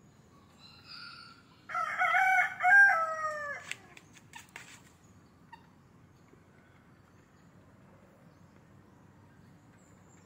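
A rooster crows once, a call of about two seconds that ends in a falling note, a couple of seconds in. A few sharp clicks follow just after.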